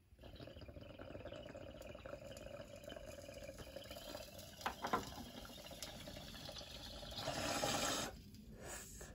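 Water in a glass beaker bong bubbling steadily as a long hit is drawn through it. The bubbling grows louder about seven seconds in, then stops abruptly about a second later.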